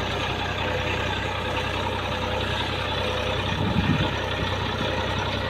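Massey Ferguson tractor's diesel engine running steadily.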